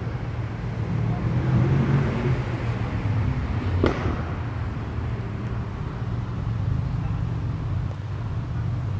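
Steady road traffic rumble, with a single sharp click about four seconds in.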